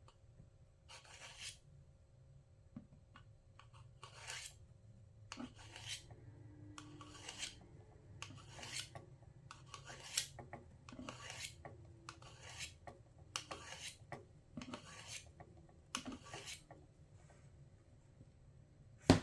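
Scissor blade being drawn again and again along the white ceramic sharpening bar of a Sharpal multi-tool sharpener: faint, short scraping strokes, roughly one a second.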